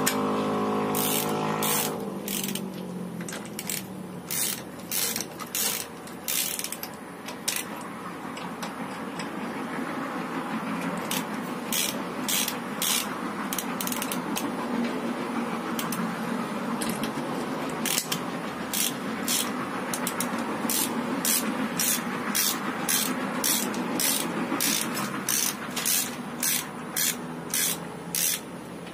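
A ratchet socket wrench clicking in repeated strokes as the wheel nuts are run on and tightened on the refitted front wheel of a car. An engine sound with a steady pitch, the loudest thing, fades out about two seconds in.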